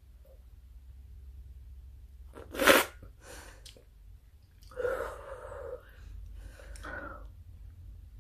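A person's mouth and breath sounds while eating a frozen yogurt bar: one loud, sharp hissing sound about two and a half seconds in, then a short hummed sound near five seconds and a briefer one near seven.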